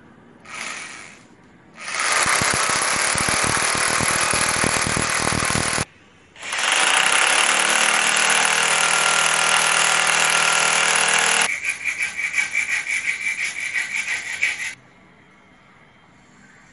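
Electric hand drill boring into a doorway frame: a short burst, then a run of about four seconds, then a longer run that breaks into a fast pulsing stutter for its last three seconds before stopping.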